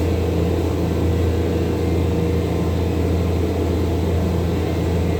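Steady low machine hum with a constant pitched tone above it, unchanging throughout.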